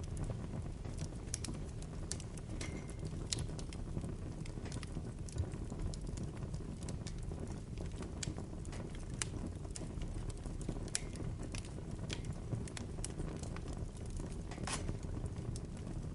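Bonfire burning, with a steady low rumble under scattered, irregular crackles and sharp pops of burning wood. One louder pop comes near the end.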